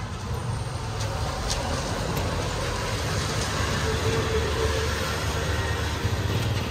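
Busy street traffic noise with a motor vehicle's engine running close by: a steady low rumble under a dense wash of noise.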